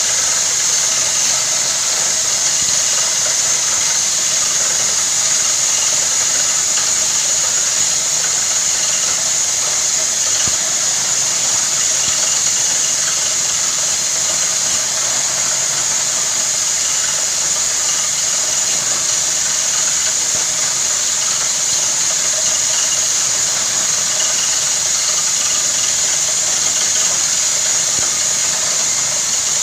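Borewell drilling rig running with its air compressor: a loud, steady engine-and-air noise, strongest in a high hiss, without a break.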